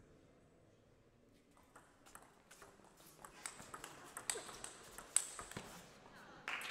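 Table tennis doubles rally: the ball clicking off rackets and the table in quick succession, the hits growing louder and faster from about halfway through. Applause breaks out near the end as the point is won.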